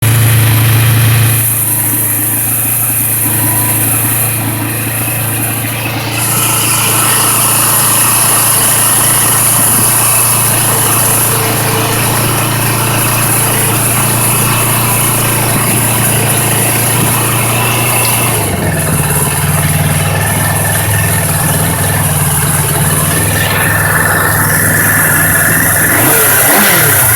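1997 Suzuki Katana motorcycle's inline-four engine running steadily, then held at higher revs from about 18 seconds in, with pitch sweeps near the end as it is revved. The owner says a vibrating sound comes whenever the engine is revved, mostly between 4000 and 5000 rpm.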